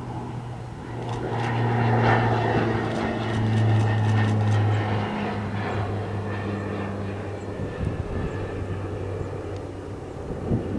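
Airbus A310-308 jet airliner's engines running during pushback: a steady low drone under a rushing noise that swells about a second in and eases after about five seconds.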